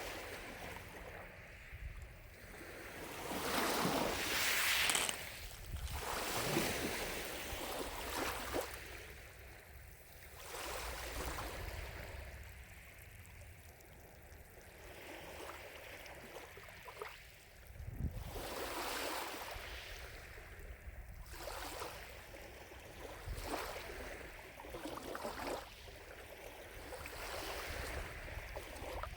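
Gentle lake waves lapping in uneven swells that rise and fall every few seconds, the biggest a few seconds in.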